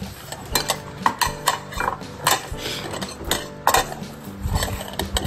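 Food bowls and cutlery clinking and knocking against each other, a quick, irregular run of sharp clinks as cat food is handled and served.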